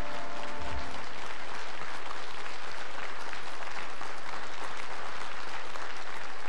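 The band's final held chord stops with a low thump about a second in, then an audience applauds steadily.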